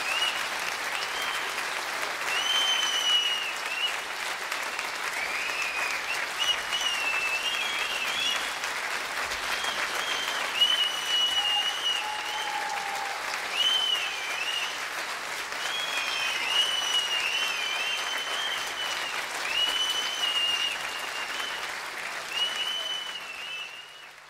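Studio audience of children and adults applauding steadily, with many short, shrill high-pitched calls over the clapping. The applause fades out near the end.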